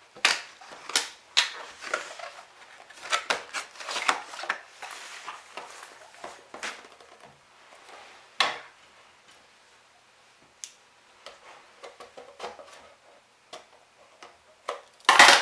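Cardboard toy box being opened and handled by hand: scattered clicks, taps and scrapes of the cardboard, busiest in the first few seconds, with one loud knock near the end.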